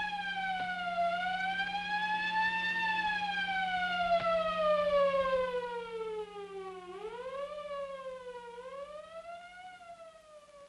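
Ambulance siren wailing, its pitch rising and falling slowly, then sliding down steadily to a low point about seven seconds in, rising and falling twice more and fading away.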